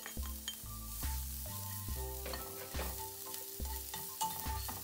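Coarsely chopped garlic sizzling in hot olive oil in a nonstick frying pan, stirred with a slotted spatula that scrapes and taps against the pan. Soft background music with low held notes plays underneath.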